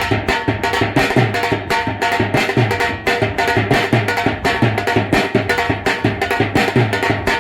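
Dance music with a steady, fast drum beat and strong bass pulses.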